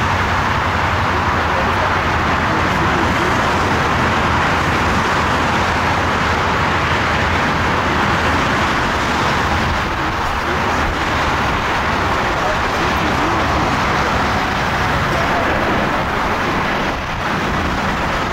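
Lufthansa Airbus A320neo jet airliner on final approach, its Pratt & Whitney geared turbofan engines giving a steady rushing jet noise at near-constant loudness, with a brief small dip near the end.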